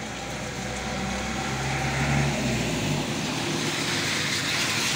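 A minibus drives past on a wet road: its engine hum builds, then the hiss of its tyres on the wet surface swells and is loudest near the end.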